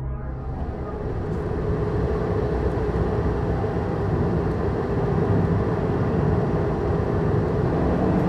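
Car driving at speed on a highway: steady road and engine noise that swells over the first couple of seconds.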